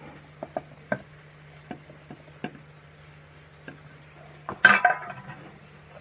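Light clicks and taps of a plate knocking against a wooden mortar as chopped green chili and ginger are scraped into it, with a louder clatter a little before the end.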